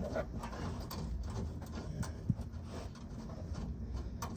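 Light, irregular metallic clicks and taps: hardware and a hand tool being worked on the spare tire hoist's mounting bolt.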